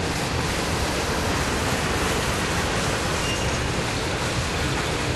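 Freight cars rolling past, a steady even rush of steel wheels on rail with no distinct clicks or tones.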